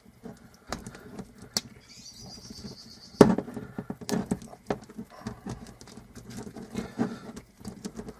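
Motorcycle roller chain clicking and rattling in irregular bursts as it is flexed by hand to find and work a stiff link, with a brief high squeak and a sharp knock about three seconds in. The link is still a little stiff.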